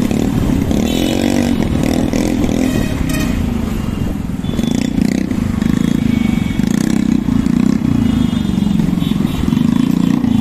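Motorcycle engine running while riding through street traffic, its pitch rising and falling a little with the throttle.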